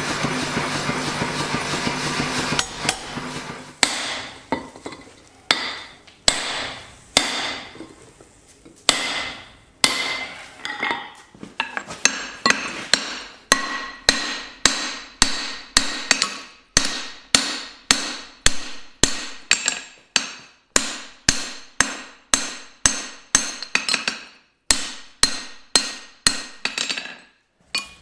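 A blacksmith's power hammer running and pounding hot steel for about the first two and a half seconds. Then come single hammer blows on hot steel at the anvil, each ringing, sparse and irregular at first, then settling into a steady run of about two strikes a second.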